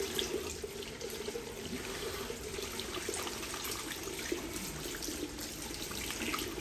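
Water running steadily from a tap as hands are washed under it.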